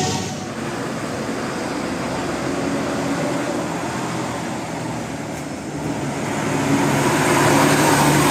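Road traffic with a large diesel vehicle's engine, likely a bus, running steadily; it grows louder near the end.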